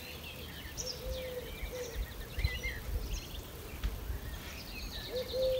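Outdoor birdsong: several small birds chirping and trilling, with a lower cooing call, typical of a pigeon, about a second in and again near the end.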